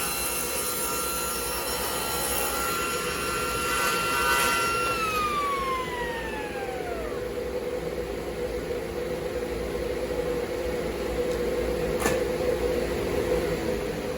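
Table saw motor running free, then switched off about five seconds in, its whine falling steadily in pitch as the blade coasts down over about two seconds. A steady machine hum carries on afterwards, with a single sharp click near the end.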